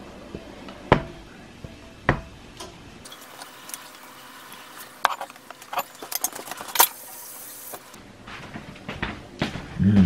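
Spatula scraping and tapping batter out of a metal mixing bowl into a metal loaf pan: sharp metal-on-metal clinks, two single ones in the first couple of seconds, a quick cluster in the middle, and a heavier knock near the end as the bowl or pan is set down.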